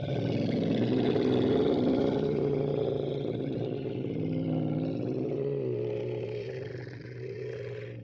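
A monster groan made from a human voice recorded and processed: one long, low, drawn-out groan that slowly fades toward the end.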